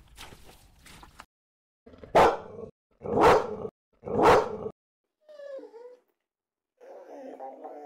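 A large dog's paws pattering as it runs for about the first second, then three loud, deep barks about a second apart, followed by a short whine and a longer wavering whine near the end.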